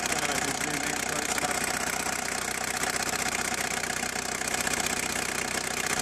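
VW T4 van's diesel engine idling steadily with an even, fast clatter, heard up close at the engine. It is running fine, now that a loose cable on the fuel pump has been found and refitted.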